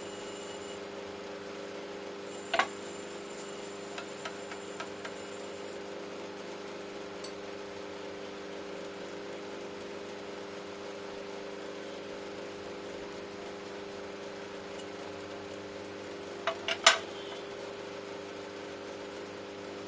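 A steady low hum with a few sharp clicks and knocks over it: one about two and a half seconds in, some light ticks soon after, and the loudest cluster near the end.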